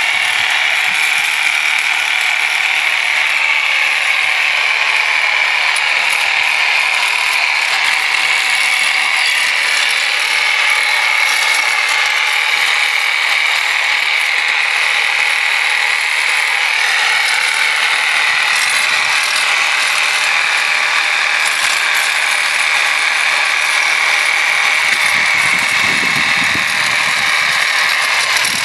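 Reciprocating saw with a flat blade running steadily as the blade scrapes barnacle crust off a boat's sterndrive lower unit, a continuous rattling buzz with no pauses.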